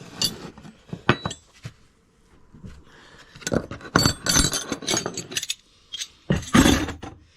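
Steel hand tools (wrenches) clinking and clattering against each other as they are handled and set down on a pile: a couple of clinks about a second in, a longer clatter from about three and a half seconds in, and another bunch near the end.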